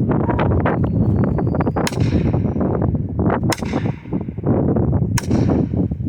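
An axe hammering a felling wedge into the back cut of a tree: three sharp, ringing strikes about a second and a half apart, driving the wedge to tip a stubborn tree over. Wind buffets the microphone throughout.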